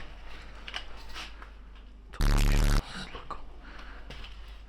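A short, loud full-auto burst from an airsoft electric rifle, about half a second long, about two seconds in. Before and after it there are light scuffs and clicks of movement.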